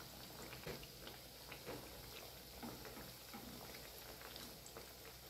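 Sesame-coated anarsa deep-frying in hot oil in a kadhai: a faint steady sizzle with scattered small pops.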